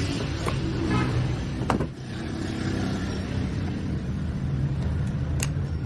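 Toyota Fortuner engine running steadily at idle, with a couple of sharp clicks.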